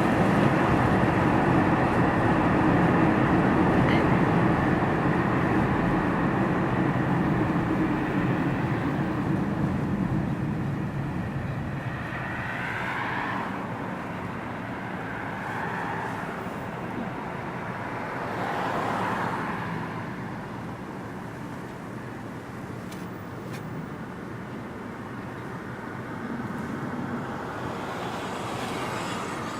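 Jet engine noise of a Boeing 747-400 on landing approach, loud at first and fading away over about ten seconds. Several short whooshes of passing traffic follow.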